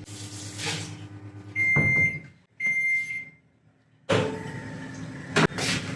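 Samsung microwave oven running with a steady hum, then sounding two long beeps about a second apart. After a short pause the hum returns and there is a sharp click.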